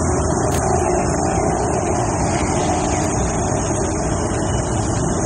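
Steady city street traffic: a continuous rumble of cars and motorcycles on a multi-lane road, with a brief click about half a second in.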